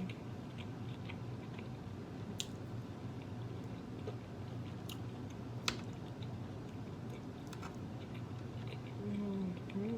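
Close-miked chewing of food, with scattered wet mouth clicks and smacks over a steady low hum. A short hummed "mm" comes near the end.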